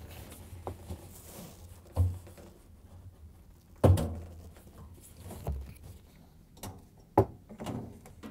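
A series of thunks and clicks from a top-load washer's suspension rod and tub parts being handled and fitted, with the loudest knock about four seconds in and a sharp click near the end.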